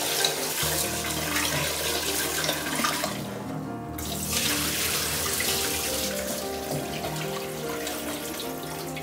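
Water splashing as parboiled rice and toor dal are washed by hand in an aluminium pressure cooker pot: a tap runs into the pot, and after a short break about three seconds in, the cloudy wash water is poured off into a steel sink. Background music plays throughout.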